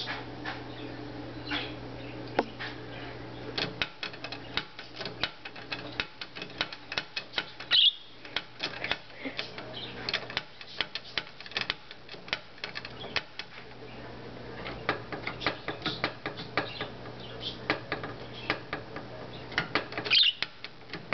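A pet bird's beak pecking and rattling at a door knob: rapid, irregular clicks and taps, with a short high chirp about eight seconds in and another near the end.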